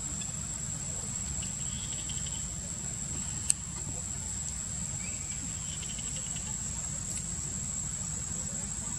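Insects droning steadily at a high pitch over a low rumble, with one sharp click about three and a half seconds in.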